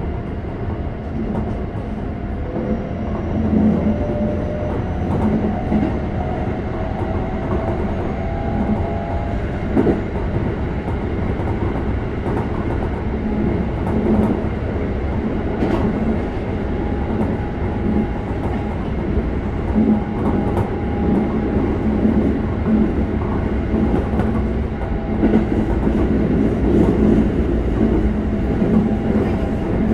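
Interior running noise of a Keikyu 600 series electric train with Toyo GTO-VVVF control: a steady rumble of wheels on rail with occasional clicks over rail joints. Over the first several seconds there is a rising whine from the inverter and traction motors as the train gathers speed.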